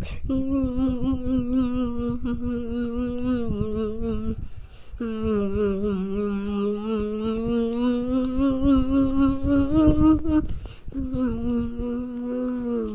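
A drawn-out, voice-like tone held in three long stretches of several seconds each, with short breaks between them. The pitch wavers slightly and sags a little near the end of each stretch.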